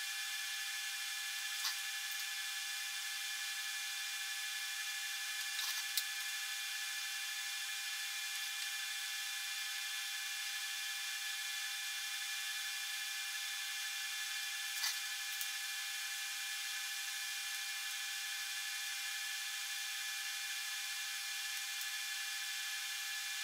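TIG welding arc burning steadily: an even hiss with several steady high-pitched whining tones, and a few faint ticks.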